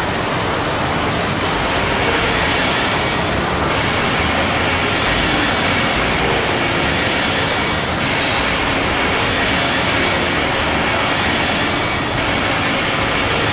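Loud, steady industrial machine noise: a dense rushing hiss and rumble with faint high whines over it, changing little.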